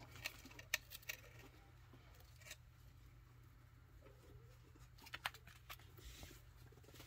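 Near silence with faint, scattered clicks and scratches from chinchillas moving about on a wooden hideout and the playpen floor, over a low steady hum.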